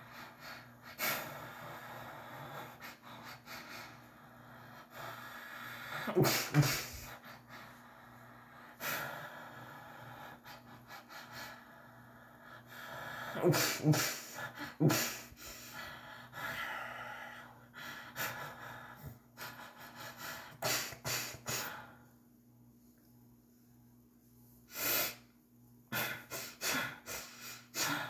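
A person's breathing and short gasps close to the microphone, among scattered sharp clicks and knocks, with a few short louder vocal sounds about 6 and 14 seconds in.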